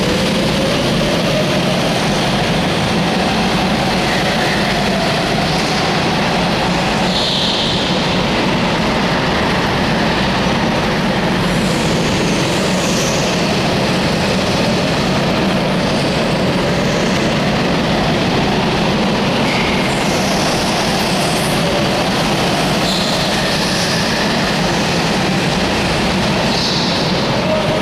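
Several go-karts lapping an indoor hall track: a dense, steady engine drone that rises and falls in pitch as the karts accelerate and slow, with brief tyre squeals now and then, all echoing off the hall walls.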